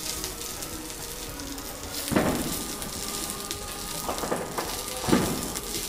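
Green chillies, mint leaves and garlic sizzling in a little oil in a black pan, turned with a wooden spatula that knocks or scrapes against the pan three times.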